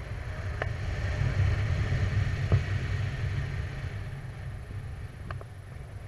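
Wind buffeting the microphone of a camera on a paraglider in flight: a steady low rumble that swells in the middle, with a few faint clicks.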